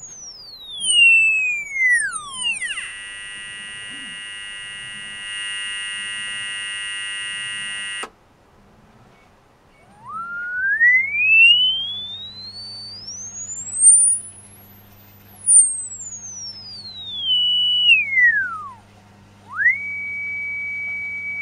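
Piezo buzzer driven with swept tones: a thin whistle glides down from very high to low, then a dense cluster of steady tones holds for about five seconds and cuts off abruptly. After a short pause, a tone glides up to a very high pitch and back down, its loudness swelling and dipping along the way, and it ends on a steady tone.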